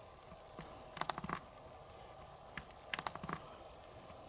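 Hand pump forcing new gear oil through a hose into an outboard motor's lower unit: two bursts of short clicking, squelching strokes about two seconds apart.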